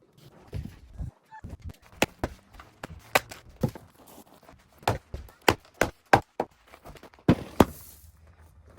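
Irregular sharp wooden knocks and thuds, about a dozen, as chunks of firewood are handled and knock against each other, with a louder, longer clatter about seven and a half seconds in.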